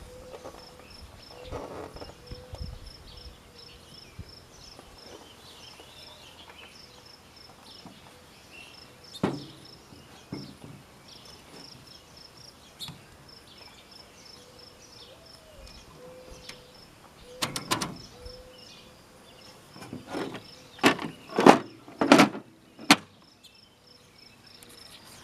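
Sparse sharp clacks from a Brother-made Sears JP-1 manual typewriter rattling on a thin metal table. There is one about nine seconds in, a short burst past the middle, then a quick run of about five loud strikes near the end. Insects chirp behind it in a fast, steady high pulse.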